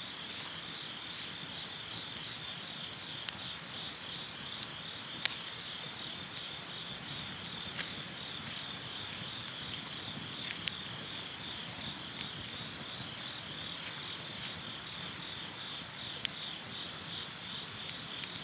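Insects chirping in a steady, high, pulsing chorus. A wood fire gives a few sharp pops, the loudest about five seconds in.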